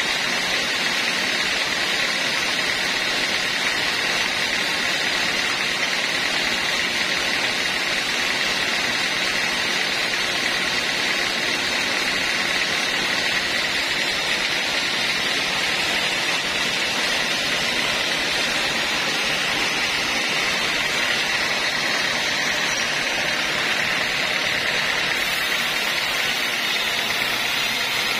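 Homemade band sawmill running steadily as its blade saws a mahogany log, a continuous mechanical noise with a steady high whine.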